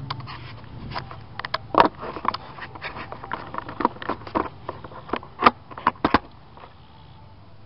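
Handling noise: a string of irregular sharp clicks and knocks, the loudest about two seconds and five and a half seconds in, over a steady low hum. The clicks stop about six seconds in, leaving the hum.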